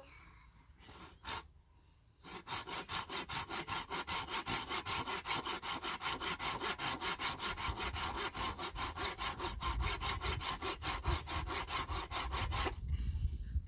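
Hand saw cutting wood with quick, even strokes, about five a second, starting about two seconds in and stopping shortly before the end.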